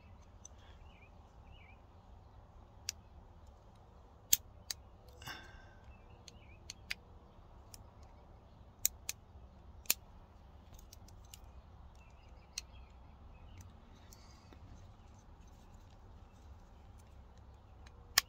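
Scattered sharp plastic clicks and snaps, about ten of them, as a flat-blade screwdriver is twisted to pry the plastic retainer clip off a car parking assist sensor. The loudest snap comes near the end, as the clip pops free.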